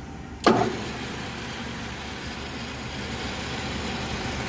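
A sharp clack about half a second in as the MSC 1340GH geared-head lathe is started, then the lathe's spindle and gearbox running steadily and smoothly.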